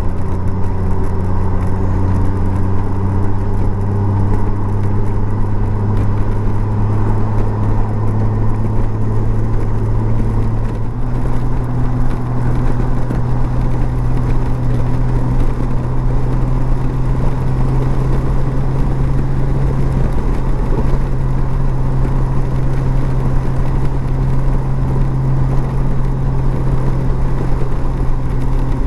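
Honda Gold Wing's flat-six engine running at cruising speed, with wind and road noise. Its pitch climbs slowly, then steps up about eleven seconds in.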